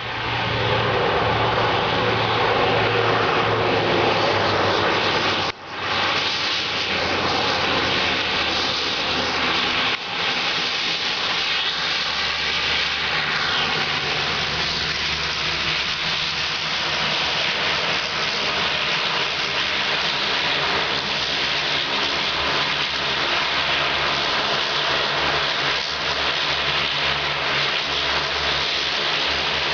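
Engines of a small Dornier twin-turboprop plane running loud as it lands and rolls out on the airstrip: a high whine over a steady hum. The sound breaks off for an instant about five seconds in, and in the second half the whine slowly falls in pitch as the engines slow.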